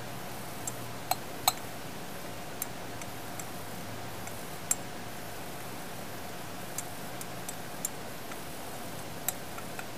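Filtered liquid dripping from a glass funnel's stem into a small glass beaker: about ten light, irregular plinks over a steady background hiss.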